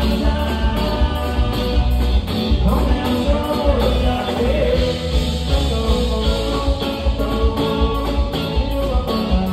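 Live band music: a male singer singing into a microphone over electric guitar, a strong bass and a steady beat.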